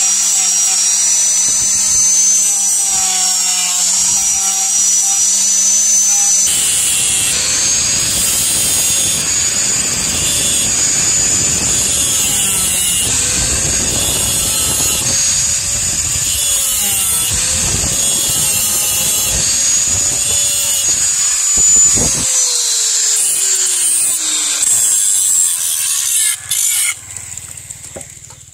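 Handheld electric angle grinder running: first sanding the knife's wooden handle with a foam-backed pad, then grinding metal with a disc, a high steady whine over a rough grinding noise. About 22 seconds in it is switched off and the whine falls as the disc spins down.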